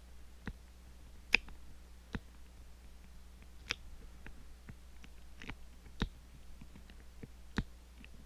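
Small, sharp metallic clicks from a lock pick working the levers of an Ingersoll 10-lever padlock, irregularly spaced, about seven of them, the loudest about a second and a half in.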